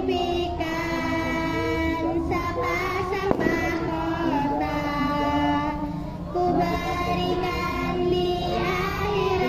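Children singing together in long held melodic lines, with a single sharp click a little over three seconds in.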